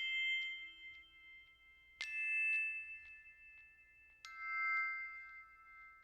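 Three bell-like chime strikes about two seconds apart, each ringing on and slowly fading.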